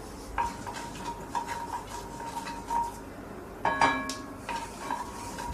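Mustard seeds heating in hot oil in a stainless steel kadai, giving scattered small clicks and ticks as they begin to pop. About four seconds in comes one louder, ringing metallic clink against the pan.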